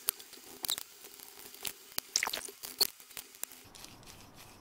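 Precision screwdriver driving tiny screws into the small metal case of a DJI Air Unit during reassembly: irregular small clicks and scrapes of metal on metal as the parts are handled, a few sharper ones among them.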